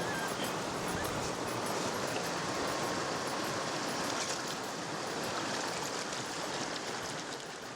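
Steady rushing of moving water, fading out near the end.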